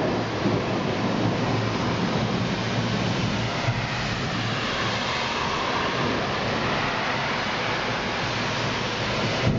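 Steady hiss of rain during a thunderstorm, with a car swishing past on the wet road about four seconds in.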